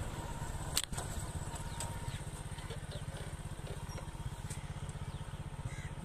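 An engine idling steadily underneath, with one sharp snap a little under a second in as the slingshot's rubber bands are released.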